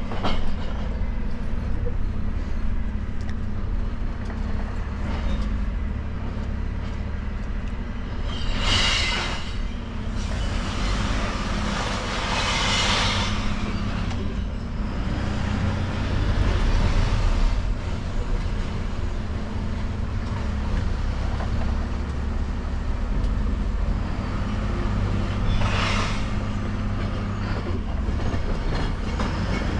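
Dennis Elite bin truck's engine running steadily, heard from inside the cab while driving. There are three short bursts of hissing, two close together about a third of the way in and one near the end.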